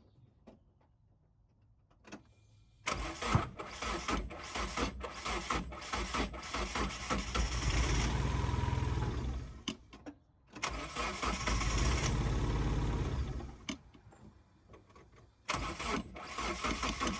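Mazda MX-5's four-cylinder engine being cranked on the starter without catching. There are three tries: a long crank of about seven seconds, a second of about three and a half seconds, and a short one near the end. It will not start even with fresh plugs and HT leads fitted after its spark plug wells were found full of water.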